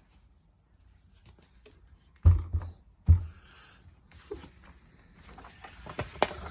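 Handling knocks: two heavy thumps under a second apart, then lighter clicks and knocks near the end.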